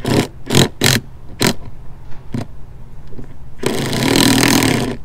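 Hand tool working a rusty metal antenna mount: several short grating scrapes of metal on metal, then about a second of continuous rasping near the end.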